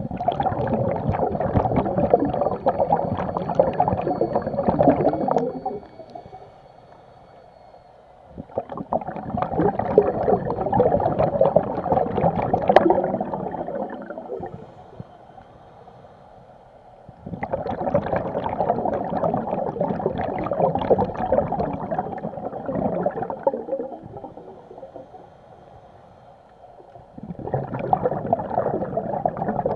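Scuba diver's exhaled bubbles gurgling out of the regulator in long bursts of about five seconds each. Each burst is followed by a quieter pause of about three seconds while the diver breathes in, repeating about every nine seconds.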